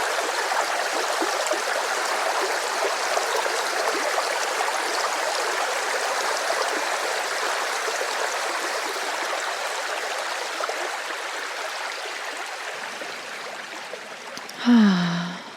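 Rushing river water flowing steadily, then fading away over the last few seconds. Near the end a brief sound gliding down in pitch stands out as the loudest moment.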